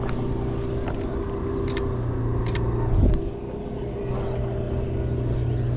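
A car engine idling steadily, with a few sharp clicks in the first half and a thump about three seconds in.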